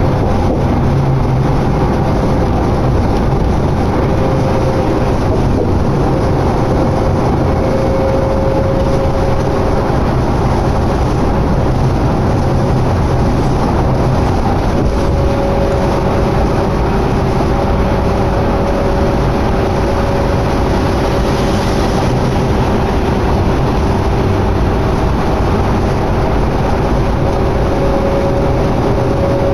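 Steady running noise heard from inside a 2011 New Flyer D60LFR articulated diesel bus while it is moving, with faint humming tones that come and go over the drone.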